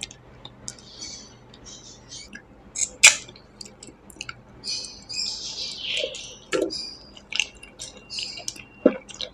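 Wet mouth sounds of a person eating fish curry with rice by hand: lip smacks, sucking and chewing, with many short sharp clicks and squeaky wet noises. The loudest click comes about three seconds in.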